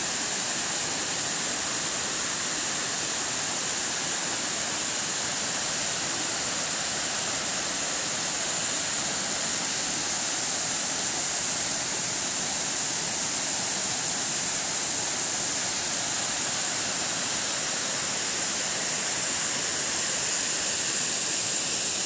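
Steady, even rushing hiss of falling water from a waterfall, many thin streams spilling down a tall cliff face.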